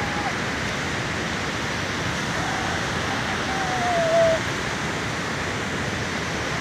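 Hattebergfossen waterfall rushing in heavy flow, swollen by rain and snowmelt: a steady even roar of falling water. Over the middle two seconds a single held tone drifts slightly downward.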